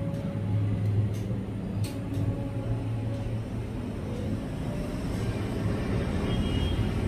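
Steady low hum, with a few faint clicks about one and two seconds in.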